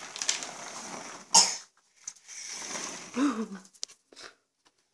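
A small child coughing: a sharp loud cough about a second and a half in and a shorter voiced cough about three seconds in, with breathy sounds between.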